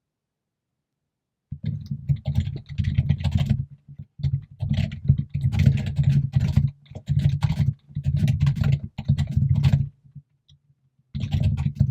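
Rapid typing on a computer keyboard in several runs of a second or two, separated by short pauses, starting about a second and a half in. The keystrokes are loud and have a heavy low thud.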